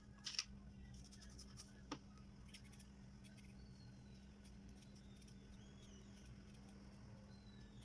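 Faint clicks and scrapes of a knife peeling fresh ginger root, with a sharper tap about half a second in and another near two seconds, over a steady low hum.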